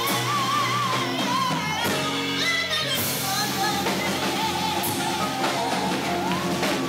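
Woman singing with a wide vibrato into a microphone, backed by a live jazz trio with drums.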